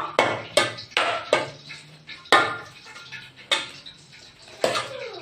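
Kitchen utensils knocking against a metal cooking pot while pasta is put in: a run of irregular clinks and clanks with short ringing, the loudest a little over two seconds in.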